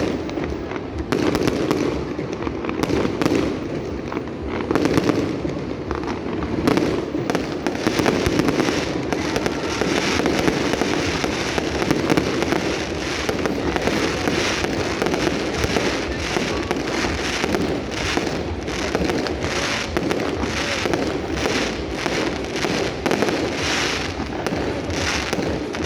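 Aerial fireworks display: shells bursting in a dense, continuous run of bangs and crackles.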